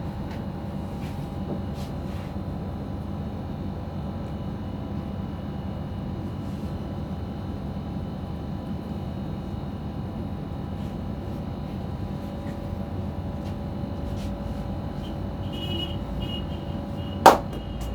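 Steady low background noise with faint scattered taps, then one loud, sharp snap near the end.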